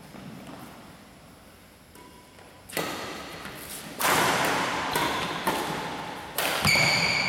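Badminton rackets hitting a shuttlecock in a rally: sharp pops that echo around a large hall, the first about three seconds in and the rest a second or two apart. A short high squeak comes near the end.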